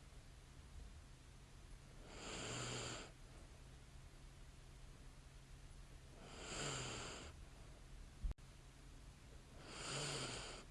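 A sleeping woman's light snoring breaths: three slow breaths, each about a second long and about four seconds apart, over a faint steady hum. A single sharp click comes between the second and third breath.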